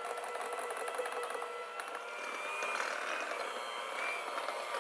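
Electric hand mixer running, its beaters whirring through a bowl of thick peanut butter frosting. The motor's steady whine shifts a little about two seconds in.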